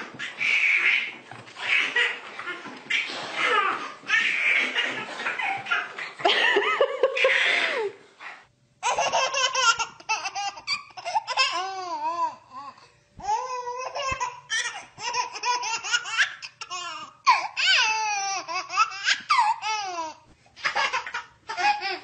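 A baby laughing in short repeated bursts, with a brief pause about eight seconds in.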